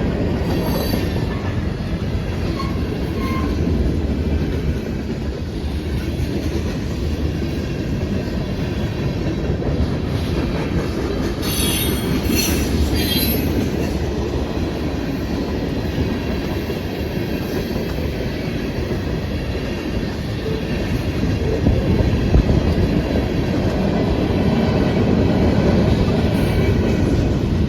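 Freight cars of a long CSX freight train rolling past at track level: a steady rumble of steel wheels on rail, with a short spell of high-pitched wheel squeal about halfway through.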